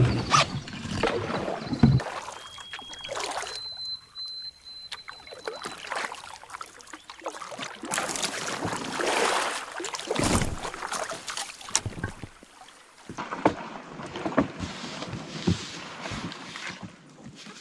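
Canoe being paddled on a river: paddle strokes swishing and splashing in the water every few seconds, with scattered light knocks and drips.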